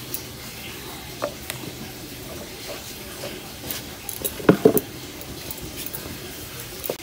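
Hands working soft dough in a steel bowl, with scattered clinks and knocks of bowls being handled; the loudest is a quick pair of knocks about four and a half seconds in.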